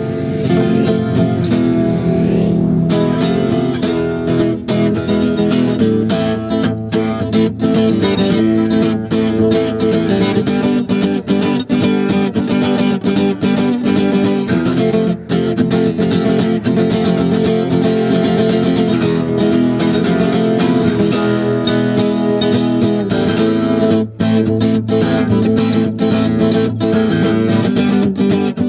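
Acoustic guitar playing a Spanish-style piece, with continuous strumming and picked notes.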